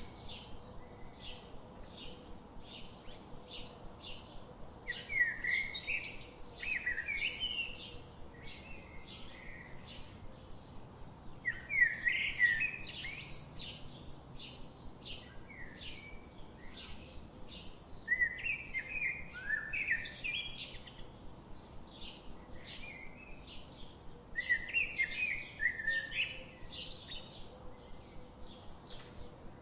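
Birds chirping: a steady run of short, high chirps about two a second, with louder twittering song phrases breaking in roughly every six seconds, over a faint background hiss.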